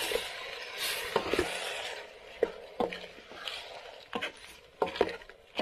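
Wooden spoon stirring pre-boiled mutton pieces into fried onions and spices in a steel pot. There is a frying sizzle that fades after about two seconds, and several sharp knocks of the spoon against the pot.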